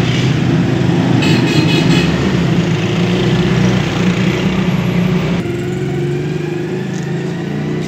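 An engine running steadily with a low, even drone. Its deepest rumble drops away abruptly about five and a half seconds in.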